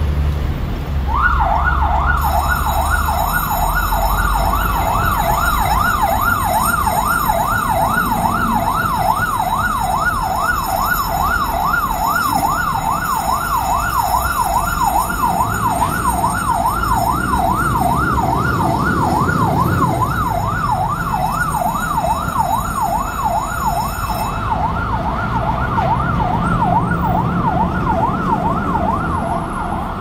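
Electronic yelp siren of a Hong Kong fire service turntable ladder truck, switched on about a second in and sweeping quickly up and down several times a second. The truck's engine is heard low underneath as it pulls out on a call.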